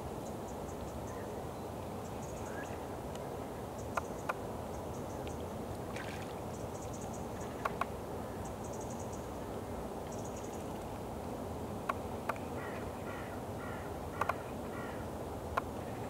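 Steady outdoor background hiss with faint distant bird calls and a few sharp clicks, several of them in close pairs.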